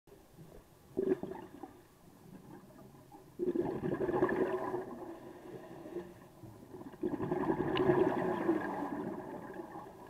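Scuba diver's exhaled bubbles rushing from the regulator underwater, coming in breaths: a short burst about a second in, then two longer bubbling exhalations of about two seconds each, with quiet in-breaths between.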